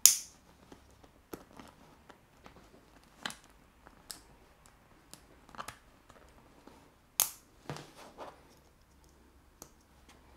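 Sharp plastic clicks and light wire handling as copper conductors are pushed into a Wago 221 lever connector. The clicks come one at a time, the loudest right at the start and another about seven seconds in.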